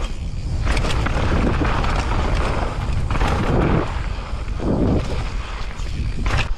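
Mountain bike riding down a dry dirt trail: wind buffeting on the camera microphone over the constant rumble of the tyres, with a few sharp clatters from the bike over bumps.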